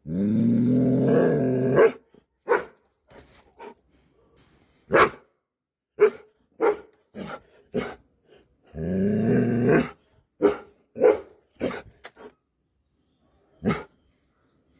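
Doberman pinscher vocalizing: a long, low, drawn-out call at the start and another around nine seconds in, with a string of short sharp barks between and after them.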